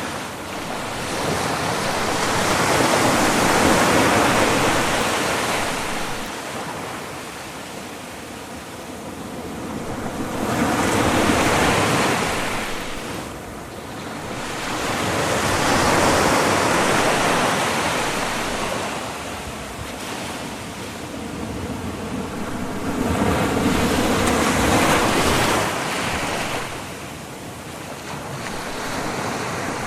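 Sea waves breaking and washing on the shore, the surf swelling and falling back in slow surges about every five to seven seconds.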